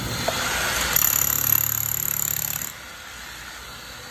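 A machine running with a steady noise and a high whine, dropping quieter just before three seconds in.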